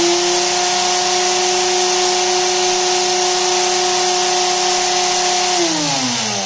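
PN Racing 70-turn brushed micro crawler motor spinning free at full throttle on a 2S battery, a steady high whine at about 21,700 RPM. Near the end it winds down with a falling pitch.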